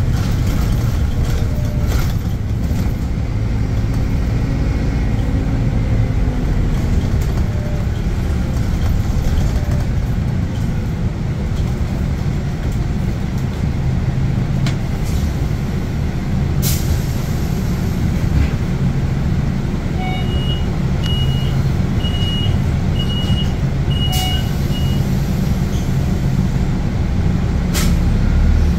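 Scania K280UB bus engine and ZF automatic transmission running under way, with a steady drone that shifts in pitch now and then. About twenty seconds in, a short run of about five high electronic beeps sounds.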